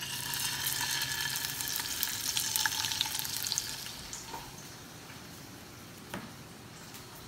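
Food sizzling and crackling in hot oil in a frying pan on a gas stove. It is loudest for the first few seconds, then dies down, with a couple of light knocks later on.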